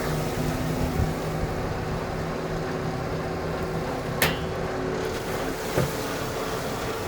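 Fishing boat's engine running steadily with a low hum, with a sharp knock about four seconds in and a lighter one near six seconds.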